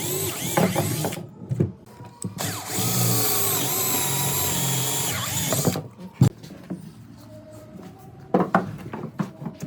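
Electric drill running: a short burst at the start, then a steady run of about three seconds with a high whine. Then a single sharp knock and a few taps near the end.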